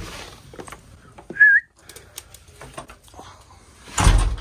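A person whistling once, a short wavering high whistle about a second and a half in, calling a dog. A door latch clicks at the start, with light knocks and steps around, and a loud rush of noise comes near the end.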